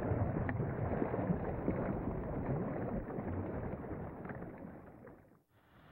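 Wind and sea noise around a boat on open water, a steady rushing with a few faint knocks. It fades, drops out briefly about five and a half seconds in, and a similar rushing resumes.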